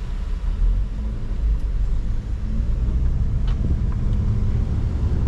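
Steady low rumble of a car's engine and tyres heard from inside the cabin while driving in slow traffic, with a faint click about three and a half seconds in.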